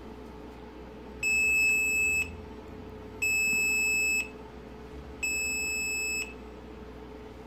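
Audi TT Mk1 instrument cluster's built-in warning buzzer sounding three steady beeps, each about a second long and about a second apart, as the cluster powers up.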